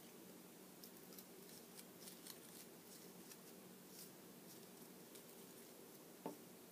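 Near silence: faint scattered crinkles and ticks of paper petals being handled and pressed together, over a low steady hum, with one slightly louder tick near the end.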